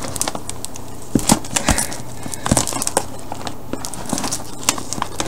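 A heavy-duty cardboard box being pried and ripped open with a dildo jammed into it: irregular scrapes, crackles and knocks of stiff cardboard.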